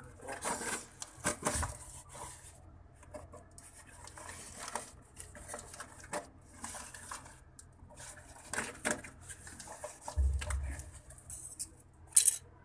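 Plastic packing tape being scratched at and peeled off a cardboard shipping box, with uneven scraping, crinkling and rustling of tape and cardboard. A dull bump comes about ten seconds in, and a short, sharp rip near the end as a taped flap is torn open.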